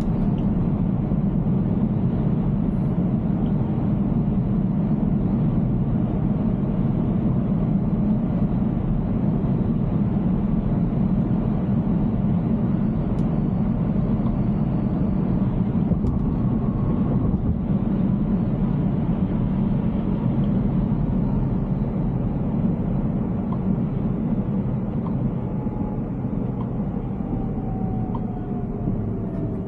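Steady road and tyre noise inside the cabin of a moving Tesla Cybertruck on wet road, with no engine note. It eases slightly near the end.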